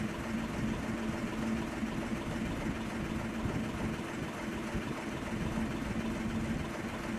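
Diesel shunting locomotive idling steadily: an even low hum with a held drone.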